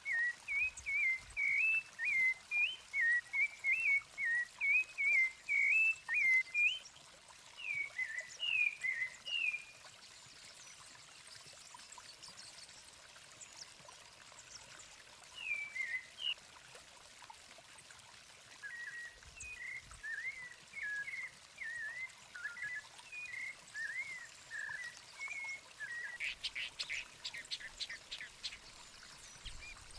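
Sabiá thrushes singing: a quick run of clear whistled phrases for about ten seconds, then a few scattered notes, then a softer run of phrases. Near the end comes a burst of rapid harsh clicks.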